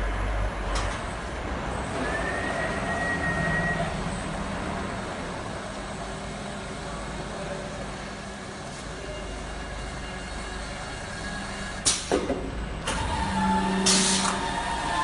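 Richpeace automatic quilt-packing machine running: a steady mechanical hum from its motors and conveyor belts, with a short whine a couple of seconds in. Two short, sharp hisses come near the end.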